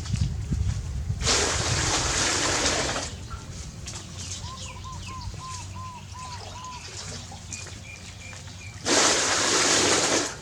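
Water poured or splashed in two bursts of about two seconds each, near the start and near the end. Between them comes a quick run of about seven small high chirps, then a few higher peeps.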